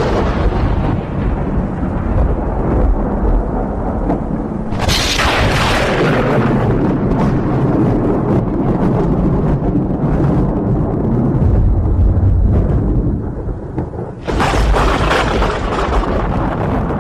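Strong wind blasting the microphone over rough sea, with a steady deep rumble and large waves crashing and throwing spray twice, about five seconds in and again near the end, each crash hissing off over a second or two.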